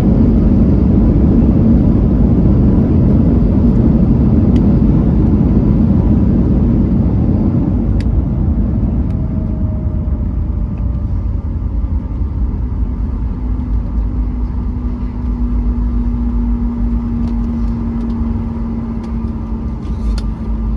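Cabin noise of a Boeing 737 MAX 8 slowing on its landing roll: a loud, deep rumble of engines and runway that eases after about eight seconds as the jet decelerates. A faint falling tone follows, then a steady hum.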